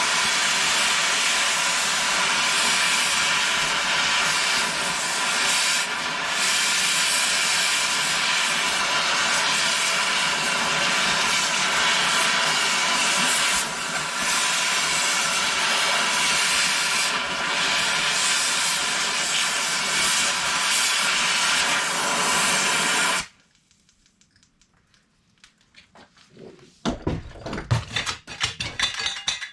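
Harbor Freight pneumatic angle grinder running flat out on compressed air in a run-to-destruction test, a steady whine over loud air hiss. It cuts off suddenly about 23 seconds in, and a few knocks and clatter follow near the end.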